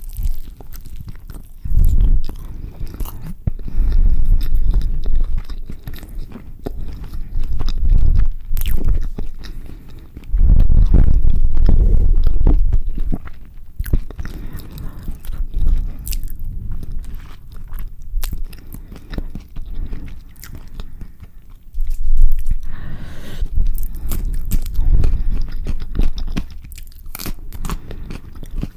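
Close-miked biting and chewing of a carne asada burrito: bites through the flour tortilla and filling, then steady wet chewing in irregular bursts, with sharp mouth clicks scattered throughout.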